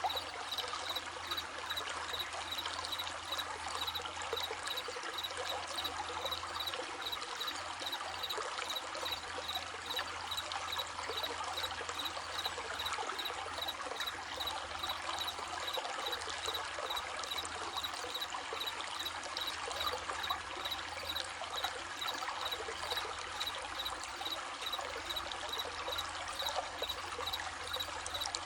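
Running stream babbling and trickling steadily, with crickets chirping in an even, rapid pulse over it.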